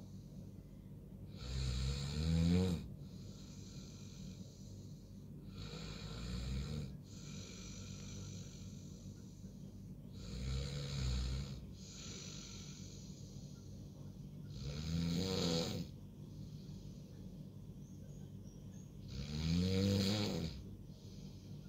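A person snoring in a steady rhythm: five loud snores about every four to five seconds, several rising in pitch, with softer breaths in between.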